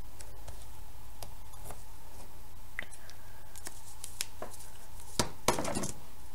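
Scattered light clicks and rustles of hands handling tear tape and a small card as the tape is laid and pressed down, with a short louder rustle near the end.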